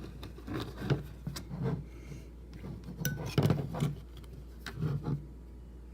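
Plastic smoke alarm housing and parts being handled and turned over, giving a series of irregular light clicks, knocks and clinks.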